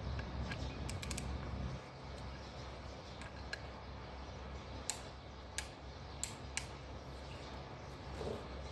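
A low steady hum that stops about two seconds in, then a handful of scattered sharp clicks and taps.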